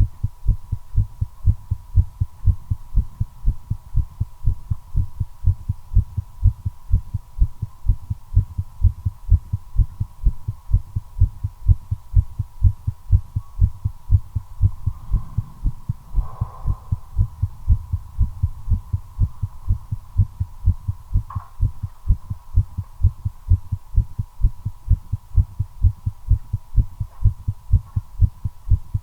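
Human heartbeat, a fast, regular run of low thumps with a faint steady high hum beneath. The uploader attributes the quickened rate to nicotine while smoking a cigarette.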